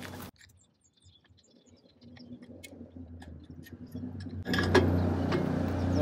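Faint clicks and light knocks as the bow roller pieces are worked off a boat trailer's winch stand. About four and a half seconds in, a steady low engine hum comes in suddenly and stays loud.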